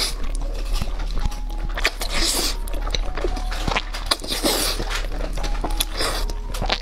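Saucy instant noodles slurped up in quick sucking pulls, about four in all, roughly two seconds apart, with wet chewing clicks between them. Faint background music plays underneath.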